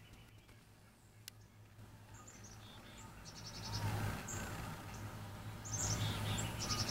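Outdoor ambience of short bird chirps and rapid insect trills, with a single click a little after one second and two louder swells of rushing noise about four and six seconds in.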